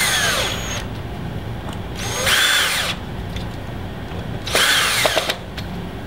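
Cordless drill/driver, its clutch set to the lightest setting, running in three short bursts to drive screws into an RC dirt-bike wheel's bead lock. Each burst is a motor whine that spins up and falls away.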